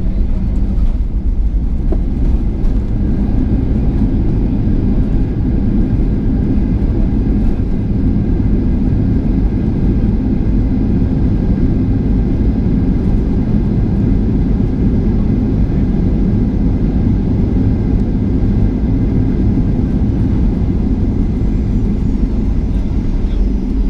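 Boeing 737-800 cabin noise: a steady, loud low rumble of the jet engines and airflow, unchanging throughout.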